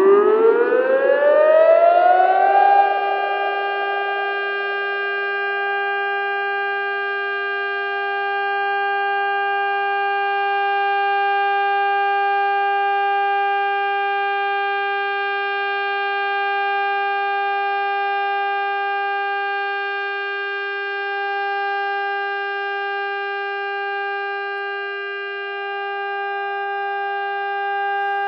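Warning siren winding up, its pitch rising over the first couple of seconds, then holding a steady, unbroken tone with several pitches sounding together.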